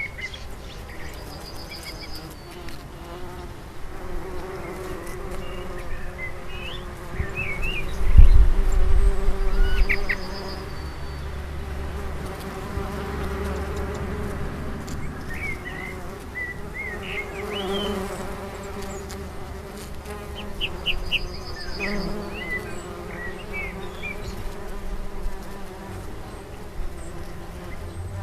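A flying insect buzzing close by in a steady hum, with birds chirping at intervals. About eight seconds in, a low rumble lasts about two seconds and is the loudest sound.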